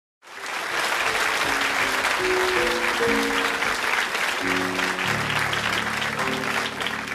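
Audience applause with an orchestra playing a tune beneath it. The clapping starts abruptly at the very beginning, and deeper notes join the music about halfway through.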